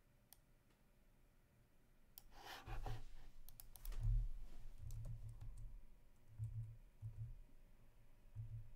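Scattered clicks and low thuds of someone working a computer keyboard and mouse, starting about two seconds in, with a short breath just before.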